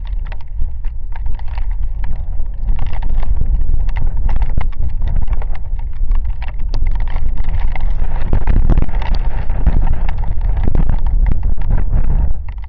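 Heavy rain, with drops striking the camera and microphone as sharp, irregular taps over a strong low rumble of wind on the microphone. It gets louder about two and a half seconds in.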